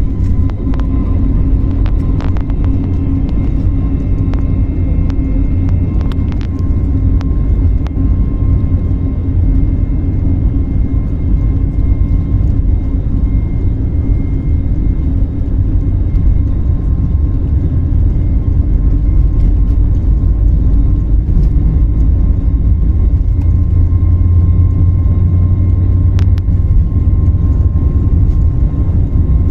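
Jet airliner noise: a steady heavy low rumble with a thin steady whine over it, growing slightly louder near the end.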